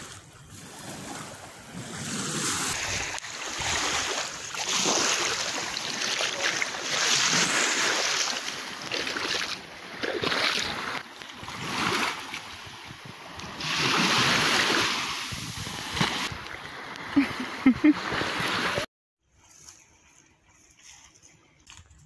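Gusty wind and surf noise at the seashore, swelling and fading unevenly. It cuts off abruptly about nineteen seconds in, leaving near quiet.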